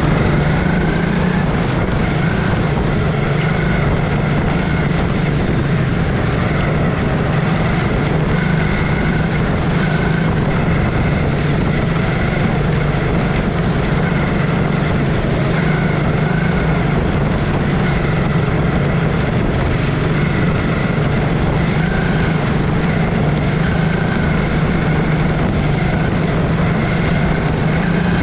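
A field of small single-cylinder Honda racing engines running laps together, a steady drone with whines that rise and fall every couple of seconds as cars pass.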